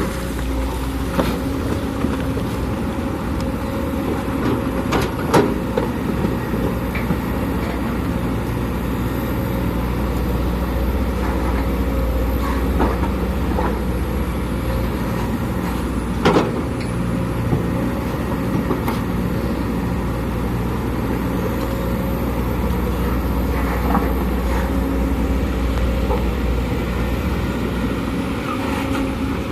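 Sumitomo SH210 excavator's diesel engine running steadily while it works, with a few sharp knocks, the clearest about five seconds in and again about sixteen seconds in.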